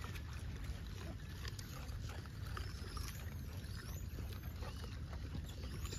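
Steady low rumble on the phone's microphone, with faint high chirps and light clicks over it.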